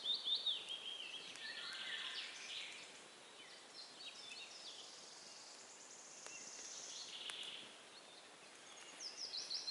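Songbirds singing: a fast run of high notes stepping down in pitch at the start and again near the end, with other chirps and a high trill between.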